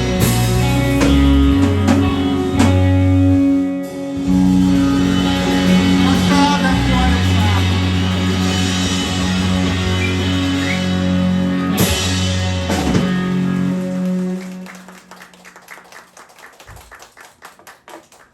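Rock band playing live with electric guitar and drums, ringing out on long held chords. The music dies away about fifteen seconds in, leaving only faint scattered clicks.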